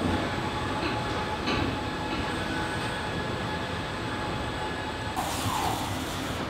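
Steady machinery din of a car body shop, with a few light knocks, and a broad hiss that comes in about five seconds in.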